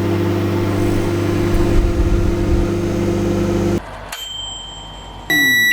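Microwave oven running with a steady hum, stopping abruptly about four seconds in with a click; near the end a loud beep sounds, the signal that heating is done.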